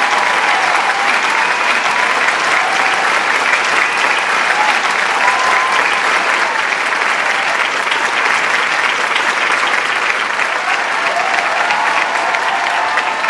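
Large crowd applauding and cheering: dense steady clapping with shouts and whoops rising above it.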